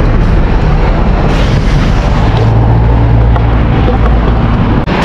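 Loud, steady rumble of wind buffeting an action-camera microphone together with pro scooter wheels rolling over a concrete sidewalk while riding.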